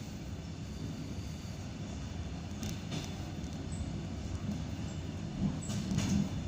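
ED9M suburban electric train running at speed, heard from inside the carriage: a steady low rumble with the wheels knocking over rail joints in pairs, twice.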